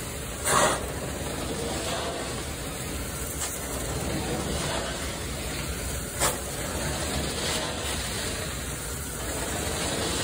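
Carpet steam-cleaning (hot-water extraction) wand drawn across carpet, with a steady rush of suction and hiss. Two short, louder bursts of rushing air break in, one about half a second in and one about six seconds in.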